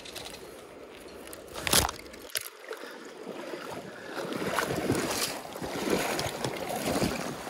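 Shallow creek water splashing and sloshing around wading boots, louder from about four seconds in, with a single sharp knock about two seconds in.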